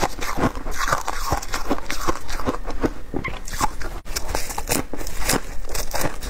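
Compacted shaved ice being bitten and chewed close to the microphone: many sharp, crisp crunches in quick, irregular succession.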